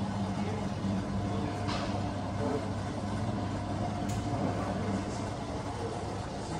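Steady low mechanical hum, like an engine running, with a couple of faint clicks.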